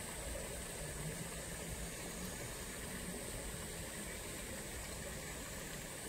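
Flowing water rushing steadily, with a thin high hiss over it.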